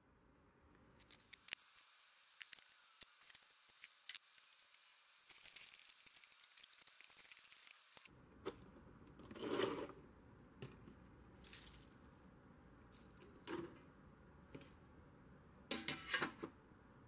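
Small metal parts clinking and rattling as they are handled, a string of light scattered clicks with a few louder clanks in the second half.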